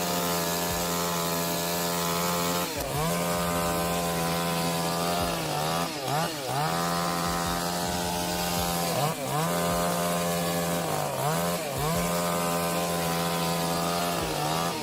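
Two-stroke chainsaw running at high revs with a steady pitch. Several times it briefly drops in pitch and climbs back up as the throttle is eased and reopened.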